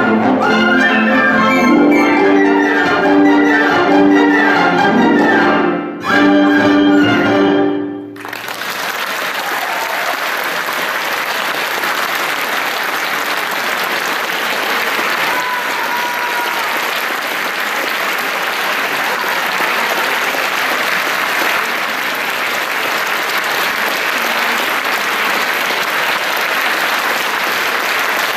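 Symphony orchestra and flute soloist playing the closing bars of a piece, with a brief break about six seconds in and a final chord that cuts off about eight seconds in. Audience applause follows and continues steadily.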